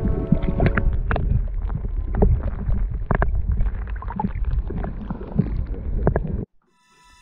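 Loud, muffled rumbling of water on an action camera held underwater, with scattered clicks and knocks from the housing. It cuts off abruptly about six seconds in, and soft music with a few steady tones takes over.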